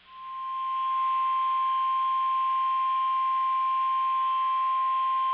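NOAA Weather Radio's 1050 Hz warning alarm tone: one steady, high-pitched tone that swells in over the first second and then holds. It signals that a warning message is about to be broadcast.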